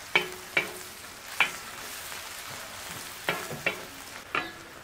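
Sliced onions sizzling in hot oil in a wide black pan, stirred with a wooden spatula that knocks sharply against the pan about six times.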